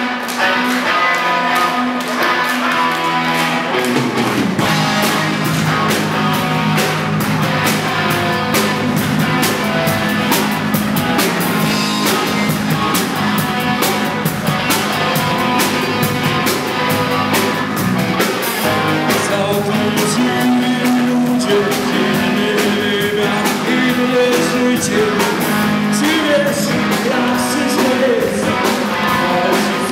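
Rock song with guitar and drums; the full band comes in about four seconds in.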